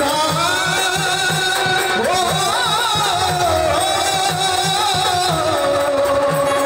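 Marathi jagaran gondhal folk song: a singer holds a long, ornamented note over a steady drum beat.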